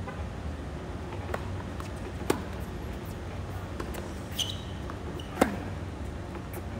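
Tennis rally on a hard court: sharp racket-on-ball strikes and softer knocks of bounces and the far player's shots, the two loudest hits about three seconds apart, the second the loudest. A short high squeak comes just before the last hit, over a steady low rumble.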